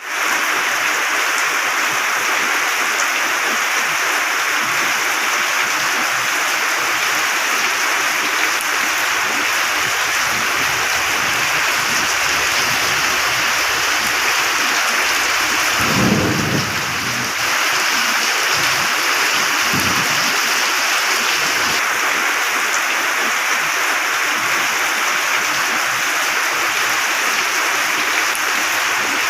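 Heavy rain falling steadily, with a short low rumble of thunder about halfway through and a briefer, fainter one a few seconds later.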